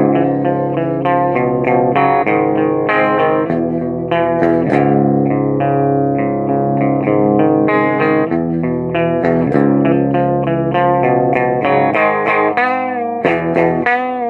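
Electric guitar played through a Peavey Bandit 112 combo amp: a continuous run of picked notes and chords, with a few bent notes near the end.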